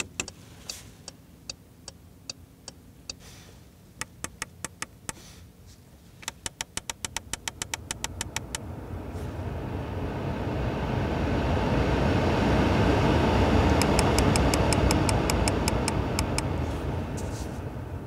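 Porsche 911 GT3's hazard-light switch clicks on and its flasher ticks steadily for about three seconds. Quick runs of detent clicks from the climate control's knurled thumbwheels follow. The ventilation fan's air rush then swells to a peak and dies back, with another fast run of clicks about two-thirds of the way in as a wheel is turned back down.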